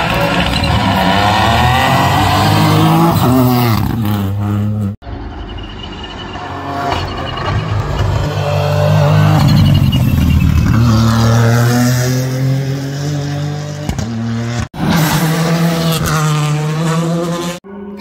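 Rally car engines accelerating hard, their pitch climbing and dropping through gear changes. The sound cuts off abruptly three times as one clip gives way to the next.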